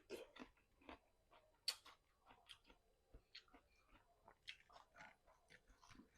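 A person chewing and biting fried free-range chicken, heard up close. It is a run of short, irregular wet clicks and smacks, the sharpest a little under two seconds in.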